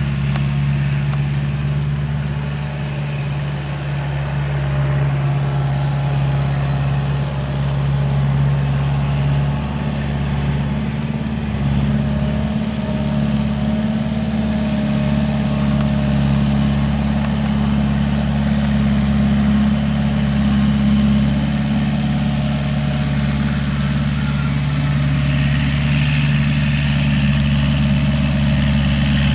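Kubota L5018 tractor's diesel engine running steadily under load while driving a rear-mounted rotary tiller.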